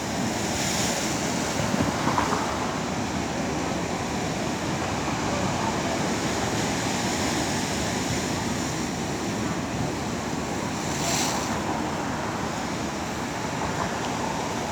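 Sea waves washing against the shore in a steady rush, with brighter splashes about a second in and again about eleven seconds in.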